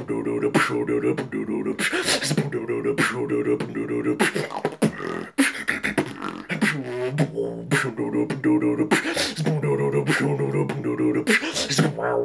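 Freestyle beatboxing: sharp mouth-made percussive hits in a steady rhythm over a pulsing, hummed bass line, with a brief gliding vocal sweep about seven seconds in.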